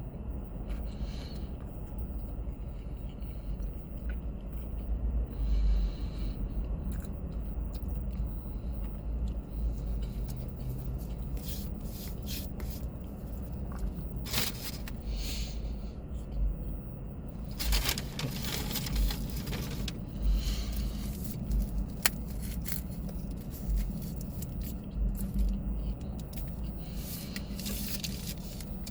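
A person eating a turkey sandwich: chewing with scattered rustles and scrapes from the paper wrapper, over a steady low hum.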